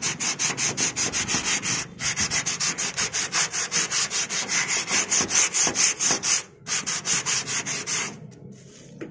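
Sandpaper rubbed by hand in quick back-and-forth strokes, about five a second, over a rusty corrugated zinc roof sheet, scuffing off the rust so the waterproof coating will bond. The strokes break off briefly twice and stop near the end.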